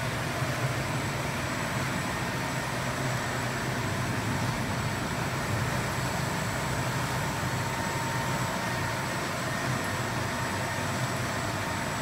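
Jagenberg Diana folder-gluer running at high speed, about 670 metres per minute: a steady, even machine noise with a low hum and a few faint, steady higher tones.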